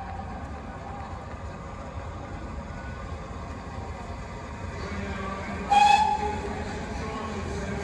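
Great Western Castle-class steam locomotive Earl of Mount Edgcumbe sounding one short, loud blast on its whistle about six seconds in, over the low rumble of the approaching train.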